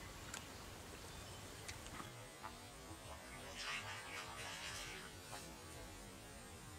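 Faint splashing at the surface of shallow pond water, a short flurry of splashes lasting about a second and a half, beginning a little past the middle.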